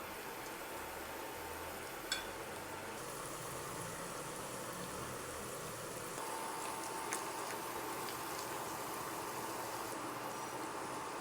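Food cooking on a stove: a steady bubbling hiss, with a sharp click about two seconds in and a fainter click about seven seconds in.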